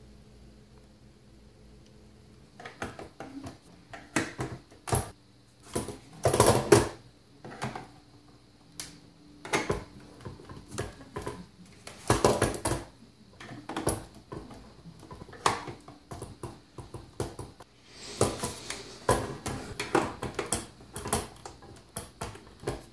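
Plastic quadcopter drone (Promark GPS Shadow) being handled and turned over on a wooden table: irregular clicks, knocks and plastic clatter, starting a couple of seconds in.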